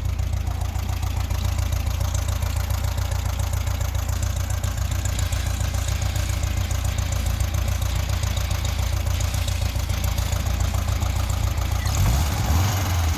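Volkswagen Beetle's air-cooled 1600 flat-four engine running steadily, with a short rise in level near the end. The engine has a fresh top-end rebuild and runs smoothly, with no odd noises.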